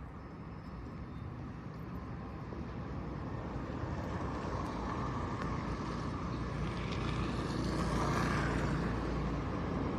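Engine running steadily with a low hum, growing gradually louder as it nears.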